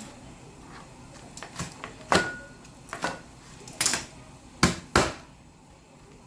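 Irregular sharp knocks and taps of kitchen utensils on a hard surface, about eight strikes, the loudest a little after two seconds and between four and five seconds in.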